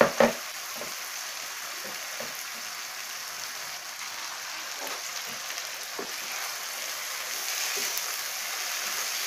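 Pieces of haddock fillet sizzling in hot oil and Madras curry masala paste in a frying pan: a steady, even sizzle that grows a little louder near the end as a spatula stirs the fish through the spice. A brief louder sound comes right at the start.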